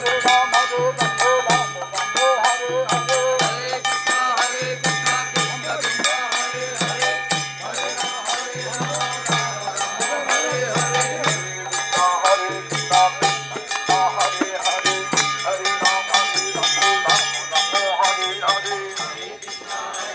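Devotional kirtan: a clay mridanga drum beaten in a steady, driving rhythm with karatala hand cymbals ringing continuously, under a lead voice chanting through a megaphone.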